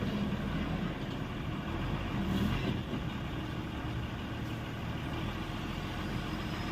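Diesel engine of a hydraulic excavator running steadily, a low continuous engine sound.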